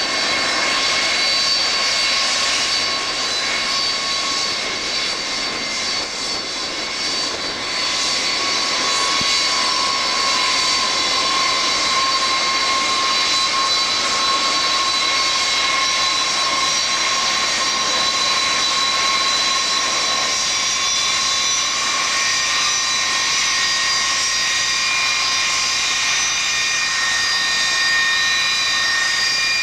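Boeing 747-300 jet engines running at low taxi power: several steady high whines over a rushing hiss, with a higher whine joining in about two-thirds of the way through as the jet turns.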